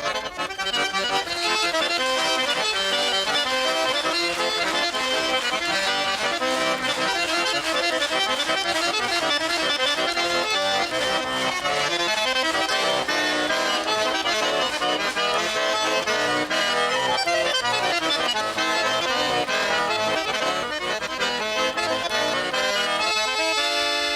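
Garmon (Russian button accordion) playing a lively instrumental passage of a folk song, many quick notes with a chordal accompaniment.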